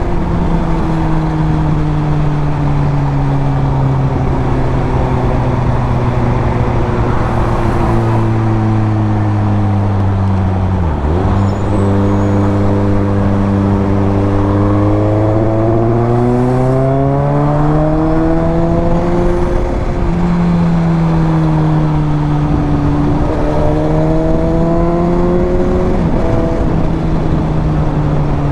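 Suzuki GSX-S750's inline-four engine and exhaust under way, its note slowly falling as the throttle eases, dipping sharply about eleven seconds in, then climbing and falling twice more with the throttle.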